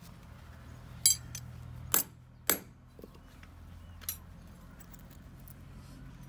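Steel farrier's tools clinking and knocking together as they are handled on the ground: three sharp metallic clinks within about a second and a half, starting about a second in, and a fainter one about four seconds in.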